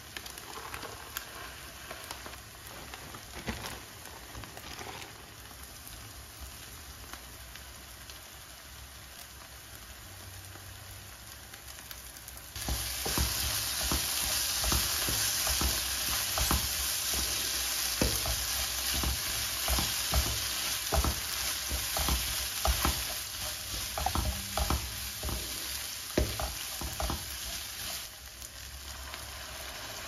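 Rice stuffing mix (onion, tomato paste, rice, currants and herbs) sizzling in a nonstick frying pan as it is stirred with a wooden spoon. The spoon taps and scrapes against the pan. The sizzle is faint at first, jumps suddenly louder about halfway through, and falls back near the end.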